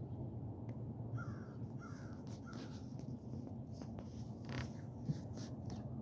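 A crow cawing three times in quick succession, followed by a few shorter rasping calls, over a steady low rumble.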